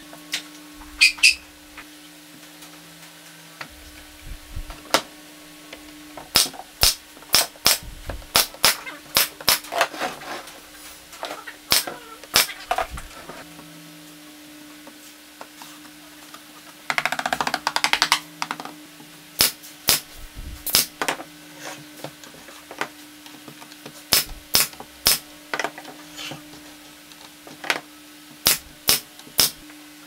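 Hammer blows on wood in quick runs of several strikes, with pauses between, over a steady low hum. About seventeen seconds in there is a brief noisy burst lasting about a second.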